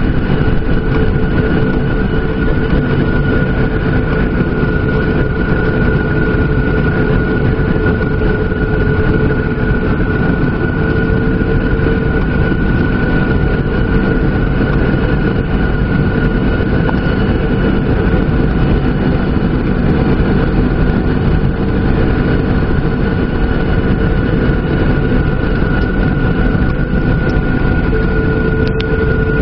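Boeing 737-800's CFM56 jet engines running at a steady high power, heard from inside the cabin: a dense rumble with a steady hum and a higher whine, typical of the take-off run.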